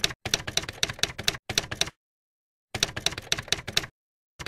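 Typewriter sound effect: rapid key clacks in quick runs, stopping dead for about a second after the first run and briefly again near the end.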